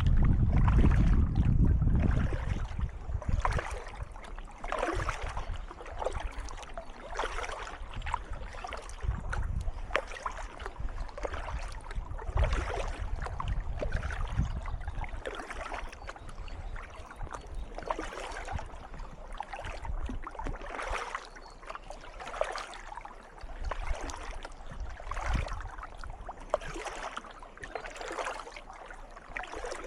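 Kayak paddle strokes splashing in calm water, about one a second at an even pace, with water trickling off the blades between strokes. A low rumble, like wind on the microphone, sits under the first couple of seconds.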